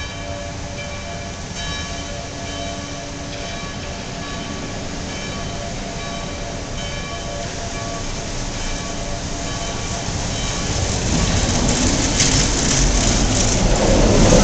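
Wuppertal Schwebebahn suspended monorail car approaching and pulling into the station. Over the first half, faint steady high tones come and go above a low rumble. The running noise then grows steadily louder through the last few seconds as the car arrives.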